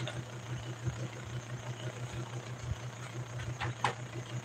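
Steady low machine hum, with a faint short sound near the end.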